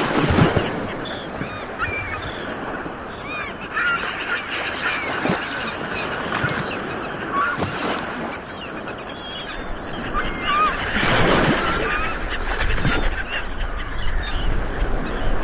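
Ocean surf washing ashore in steady rushes, with a louder wave breaking near the start and another about eleven seconds in. Many short honking bird calls, likely geese, sound throughout over the waves.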